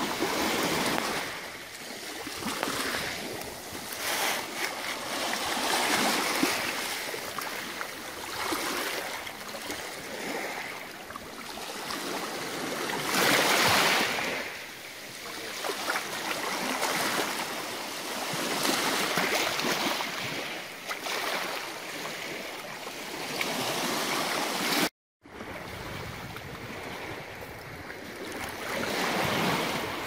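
Small sea waves lapping onto a pebble beach, each wash swelling and fading every few seconds, with one louder surge about halfway through. The sound breaks off for a moment near the end.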